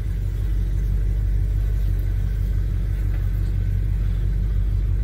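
1978 Chevrolet C10 pickup's engine running steadily at low speed, heard from inside the cab as the truck moves slowly, freshly started after several weeks sitting.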